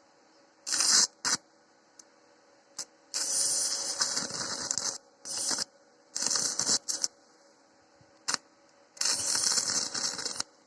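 Welding arc struck about seven times, the runs ranging from a blip to about two seconds, each crackling and spattering with a steady high whistle over it. The welder can't find the cause of the whistle or of the heavy spatter. A faint steady whine from the welding transformer carries on between the arcs.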